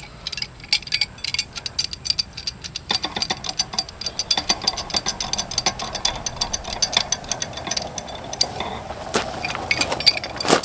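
Rapid, irregular metallic clicking and rattling of a pipe wrench working on a Suburban RV water heater's pressure-relief valve, which is stuck tight and won't turn. A steadier mid-pitched hum joins in about three seconds in.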